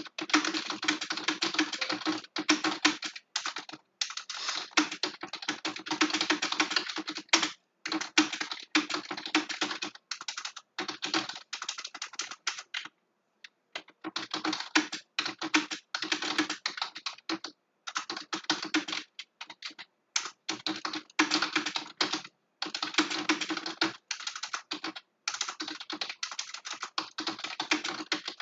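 Continuous fast typing on a computer keyboard: rapid key clicks in long runs, broken by short gaps and one pause of about a second near the middle.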